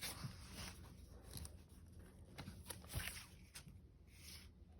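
Faint handling noise: scattered light clicks, taps and rustles, with one sharper tap about three seconds in.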